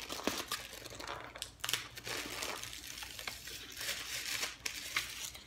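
Bubble wrap and packing paper crinkling and rustling as they are handled and pulled out of a cardboard box, in irregular bursts.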